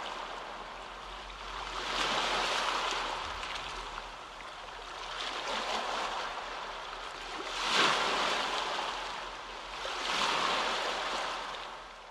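Waves on a shore, washing in and drawing back in four slow swells, the third the loudest.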